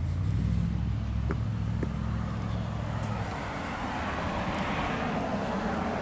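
A road vehicle going by: a steady low engine hum for the first three seconds, then a swell of tyre and road noise that peaks four to five seconds in.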